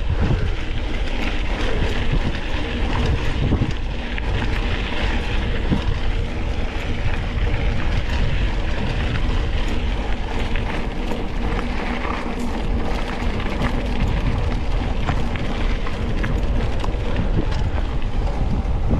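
Wind buffeting the microphone while a mountain bike is ridden over rough ground, with a steady run of small rattles and knocks from the bike.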